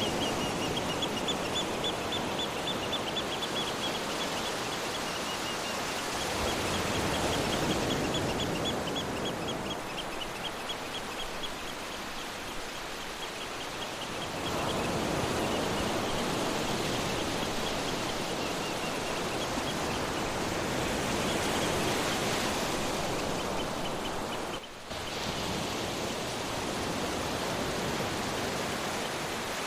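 Sea surf washing steadily, swelling and easing every several seconds. Over it a high, rapidly pulsed trill repeats through much of the first twenty seconds. The sound briefly drops out about 25 seconds in.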